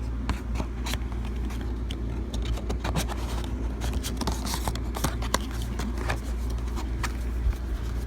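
Album inserts and packaging being handled: a run of irregular light clicks and scrapes over a steady low rumble.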